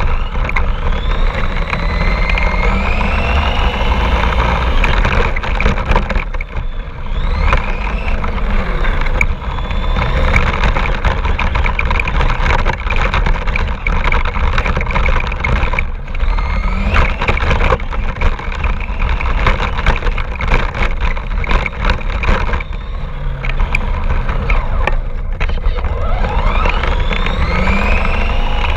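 Radio-controlled car driving over rough ground, its motor whining up and down in pitch again and again as it speeds up and slows, over constant rattling knocks and a low rumble.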